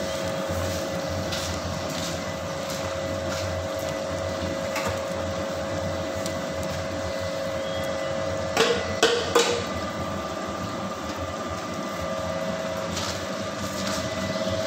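Motor-driven wooden ghani oil press running with a steady hum as its pestle turns and crushes oilseed in the mortar. A few sharp knocks come in a quick cluster about nine seconds in.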